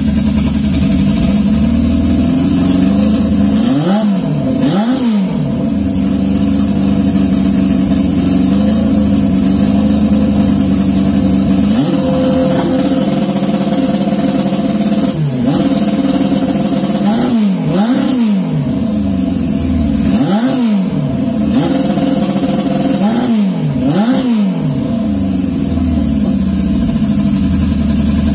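Turbocharged Honda CB750 SOHC inline-four engine idling and revved in short, sharp throttle blips, mostly in pairs: one pair about four seconds in, then five more blips between about 15 and 24 seconds in. The engine is being run to test its two-step launch limiter, just raised to 5,200 RPM.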